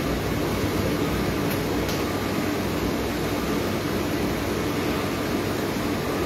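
Steady mechanical hum with an even rushing noise, unchanging throughout.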